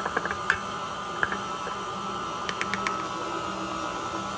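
Stand mixer motor running steadily, its beater mixing flour into cake batter in a steel bowl, with a few light clicks near the start and again after about two and a half seconds.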